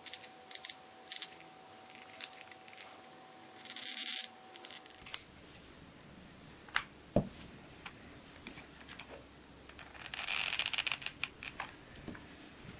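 Hand-handling noises of small craft work on a tabletop: scattered clicks and taps, one sharp knock about seven seconds in, and two brief rustling scrapes. A faint steady hum stops about five seconds in.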